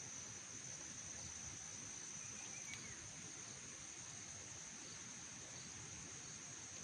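Faint insect chorus, crickets giving a steady high-pitched drone, over low outdoor hiss.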